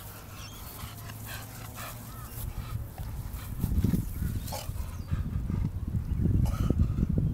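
Staffordshire bull terrier breathing hard close to the microphone after a sprint, the breaths getting louder from about halfway through.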